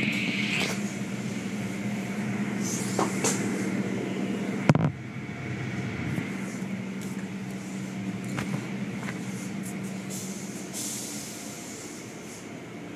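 Automatic car wash tunnel machinery running: a steady mechanical hum with hissing water spray, a few clicks, and one sharp knock a little under five seconds in. It grows fainter toward the end.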